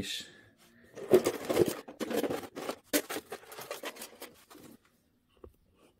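Copper motor windings and stripped copper wire tipped out of a plastic tote onto a platform scale: a dense rustling clatter of many small knocks for about four seconds, dying away to a few light knocks near the end.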